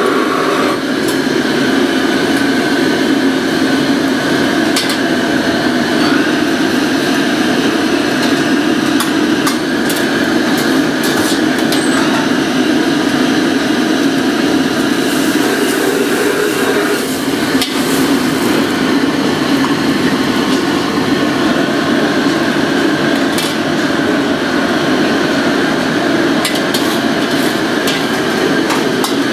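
Steady roar of a commercial gas wok range, with metal ladles clanking against the woks now and then.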